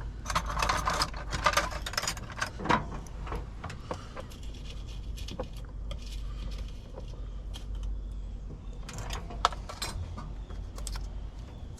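Keys and small metal locksmith tools jangling and clicking as they are handled and sorted, busiest in the first couple of seconds and again near the end, over a low steady rumble.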